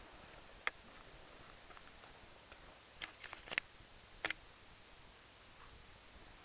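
A few short sharp clicks and taps over a faint hiss: one just under a second in, a quick cluster of four or five about three seconds in, and a double click a little after four seconds.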